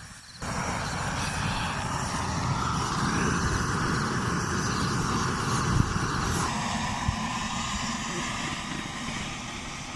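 Oil-fed burner flame roaring with a steady rush that starts suddenly and shifts tone slightly a little past halfway.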